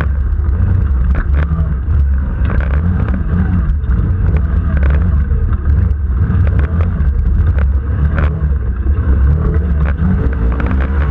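Engine of an open, roll-caged off-road special running hard, recorded on board, with its deep drone steady throughout. Frequent short knocks and rattles come from the vehicle jolting over the rough course, and the engine pitch rises and falls near the end.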